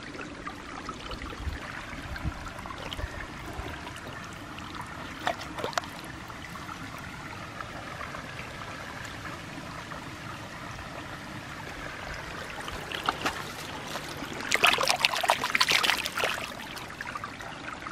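Shallow creek trickling steadily over rocks. Near the end a hand splashes and swishes a toy through the water in a short flurry.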